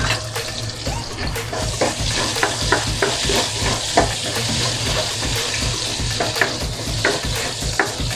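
Diced red onion sizzling as it sautés in hot oil in a wok, stirred with a spatula that clicks and scrapes against the pan again and again.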